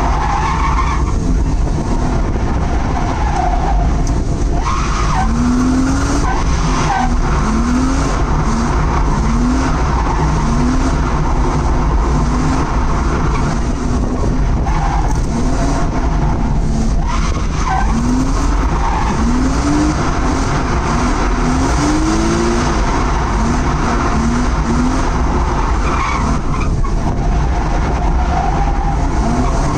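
Drift cars sliding with tyres screeching continuously, their engines revving in short rises over and over as the drivers work the throttle.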